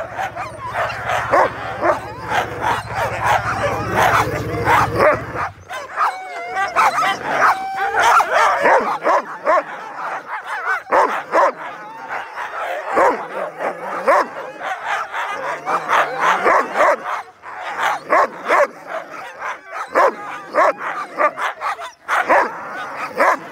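A harnessed team of sled-dog huskies barking, yelping and howling all together without pause, the excited racket of dogs lunging on the gangline before a run. A steady low hum runs underneath and stops about five seconds in.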